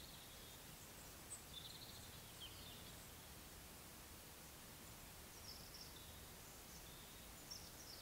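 Faint outdoor ambience with small birds giving brief, high-pitched chirps here and there.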